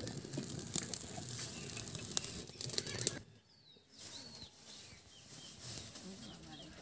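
Crackling and hissing with many sharp clicks from a wood cooking fire for about three seconds, then, after a sudden drop, quieter outdoor background with birds chirping.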